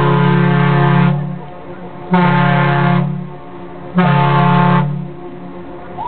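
Ship's whistle of the car ferry Badger, deep and sounding several tones at once: the end of a long blast that cuts off about a second in, then two short blasts about two seconds apart.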